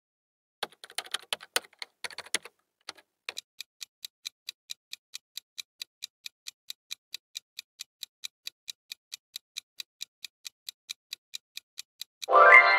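Clock-ticking sound effect for a quiz countdown timer, with evenly spaced ticks about four a second, preceded by a brief patter of irregular clicks. Near the end a louder pitched sound effect rises in pitch.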